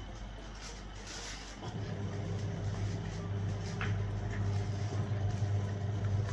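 A steady low motor hum starts about one and a half seconds in and runs on evenly, with a few faint clicks over it.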